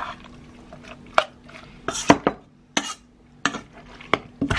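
Metal spoon clinking and scraping against the inside of a pot while stirring marinated chicken and onions, with sharp knocks coming irregularly about every half second.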